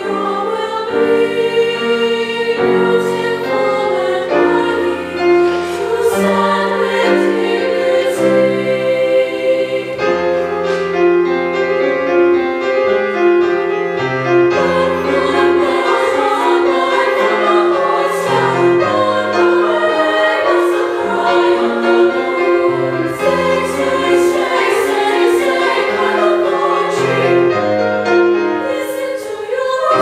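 Women's chorus singing in parts with piano accompaniment. The voices hold sustained notes over a moving piano bass line.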